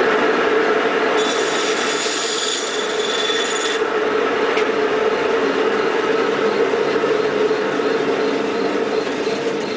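Hand-drill friction fire: a fireweed-stalk spindle spun between the palms, grinding into a notch in a pine hearth board with a steady, continuous rasping rub. From about one to four seconds in, a thin, high, hissing squeal rides over the rubbing.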